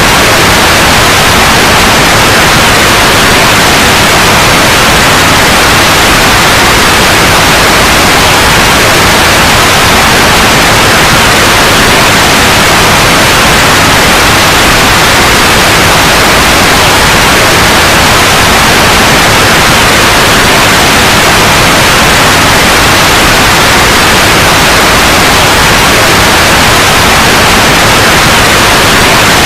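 Steady, loud white noise: an even hiss across the whole range, unchanging throughout.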